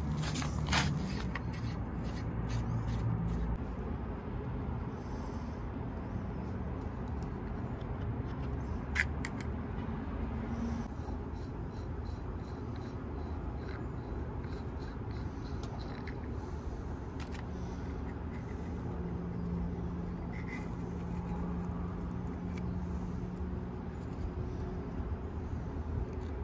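Scattered clicks and scrapes of a drill bit sharpener's metal-and-plastic bit chuck and collet being worked loose and handled by hand, with a sharp click about nine seconds in, over a steady low background rumble.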